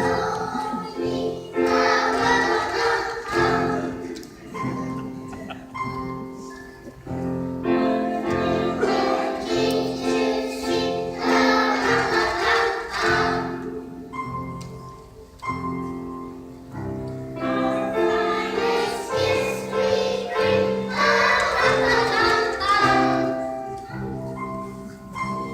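Choir singing a Christmas song, in sustained phrases with short breaks between lines.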